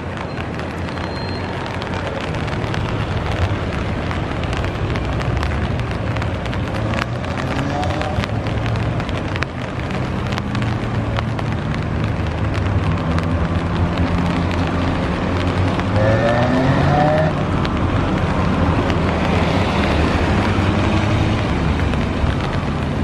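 Heavy rain falling, with drops ticking on a nearby umbrella, over a low engine hum that rises in pitch twice, about a third of the way in and again near three-quarters.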